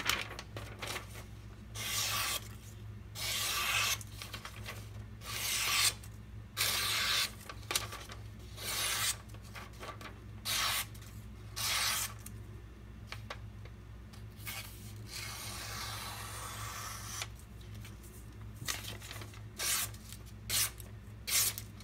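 Freshly sharpened kitchen knife slicing through paper: a dozen or more short hissing slices, one longer and quieter draw a little past the middle, and a quicker run of short cuts near the end. The slices go through cleanly without the edge catching, the sign of a burr-free edge.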